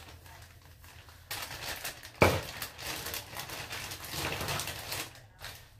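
Rustling and handling noises as skincare products are picked up and moved about, with one sharp knock a little over two seconds in.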